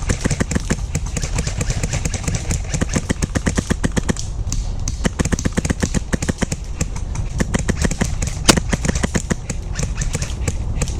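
Airsoft rifles firing on full auto, with fast strings of sharp shots running almost without a break and one louder crack near the end, over a steady low rumble.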